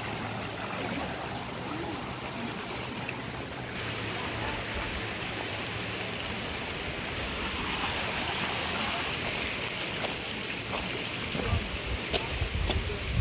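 Stream water rushing over rocks, a steady hiss that grows louder about four seconds in, with a few sharp clicks and low bumps near the end.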